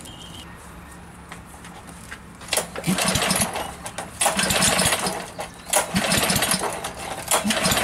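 Kohler Courage XT-7 173cc engine on a pressure washer being pull-started about four times, each pull a rush of the recoil cord and the engine spinning over for about a second. There is no fuel in the tank, so it turns over without firing, a check that it spins freely after an oil change.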